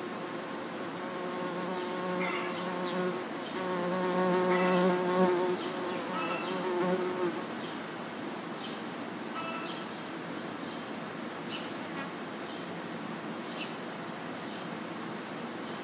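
A flying insect buzzing close by, a low steady drone with a slightly wavering pitch that swells toward the middle and stops about seven seconds in. A steady background hiss with a few faint short ticks remains after it.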